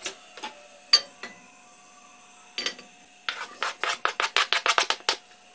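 Diced tomatoes being scraped off a plastic cutting board into a nonstick frying pan: a few separate clicks and knocks, the loudest about a second in, then a quick run of rasping scrapes, about six a second, as the board is worked against the pan's rim.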